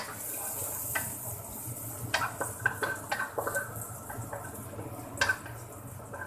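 Dried shrimp frying in oil in a nonstick wok with a steady high sizzle, stirred with a wooden spatula that clicks and scrapes against the pan several times, most in a cluster a couple of seconds in.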